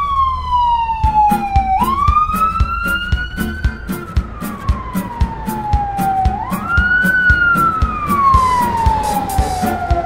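Ambulance siren wailing, its pitch sliding slowly down and sweeping back up about three times. A steady beat runs underneath.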